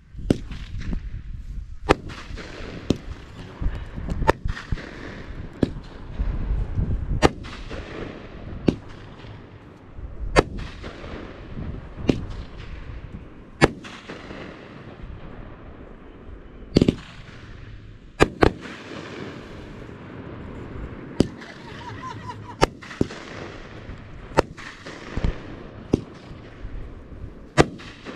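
Red Lantern Stonehenge 21-shot 500 g firework cake firing its shots one after another, a sharp bang about every second and a half, each with a fading echoing tail.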